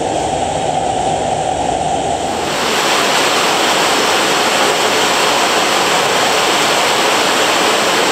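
Steady rushing of a cave stream or waterfall. Its hiss turns louder and fuller about two and a half seconds in, then holds steady.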